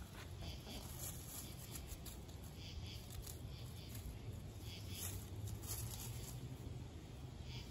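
Faint, scattered rustling and ticking of chickens scratching and pecking among dry fallen leaves, over a steady low rumble.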